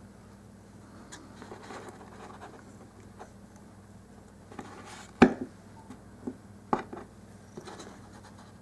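Small handling noises of hands working fine wire and a small pointed tool against a dollhouse ceiling board: faint rustling and scratching, then a sharp tap about five seconds in and another a second and a half later, with a few lighter ticks.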